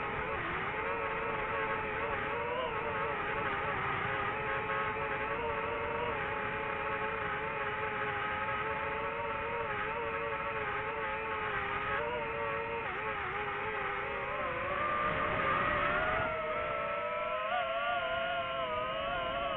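DJI FPV drone's motors and propellers whining in flight. The pitch wavers with the throttle, climbs and grows louder about fifteen seconds in, then falls again near the end.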